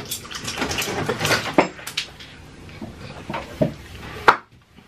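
A run of small clicks and crackles, dense for about two seconds and then thinning out, with one sharper click near the end before the sound cuts out abruptly.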